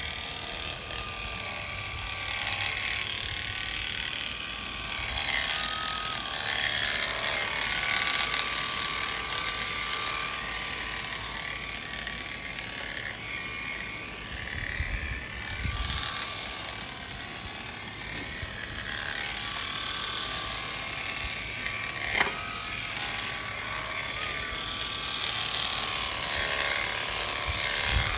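Premier One electric sheep-shearing clippers running steadily as the fleece is sheared off a ram, the motor's whine rising and falling a little with the load, with one sharp click about three quarters of the way through.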